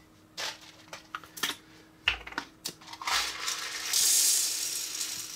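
Unpopped popcorn kernels poured into a clear plastic measuring cup: a dense, steady rattling hiss for about two seconds in the second half. Before it come a few sharp clicks and a dull knock as the cup and kernel container are handled.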